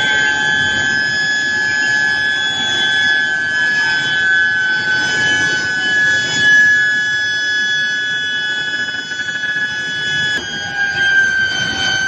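Induction billet heating furnace whining with a steady high-pitched tone and fainter overtones as it heats the glowing steel billets passing through its coils, over a rough background of mill machinery. About ten and a half seconds in, the tone steps and then slides slightly lower.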